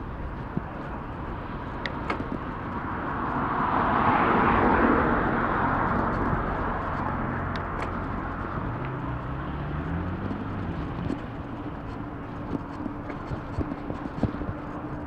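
Road traffic heard from a moving bicycle over a steady rumble: a vehicle passes close, loudest about four to five seconds in, then an engine is heard speeding up with rising pitch shortly after. Scattered light ticks run through it.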